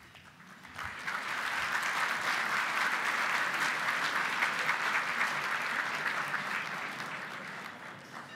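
A large audience applauding: the clapping starts about a second in, holds steady, then dies away near the end.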